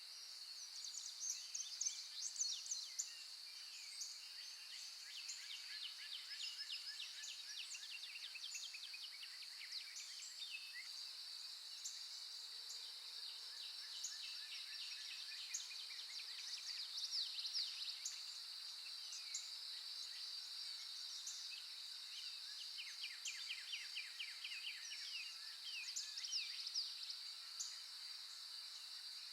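Nature recording of wild birds chirping and trilling in quick repeated series, over a steady high-pitched drone; the chirping is busiest about two seconds in, and again in the middle and near the end.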